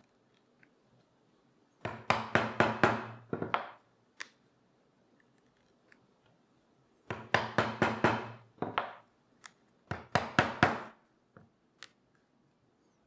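Mallet striking a leather stitching chisel to punch stitching holes through leather: three runs of rapid, sharp knocks, about two seconds in, seven seconds in and ten seconds in, with a few single taps between.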